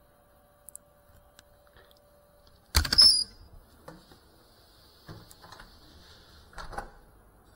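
A sharp, loud clatter about three seconds in, followed by a few softer knocks and a faint hiss; no motor is heard running.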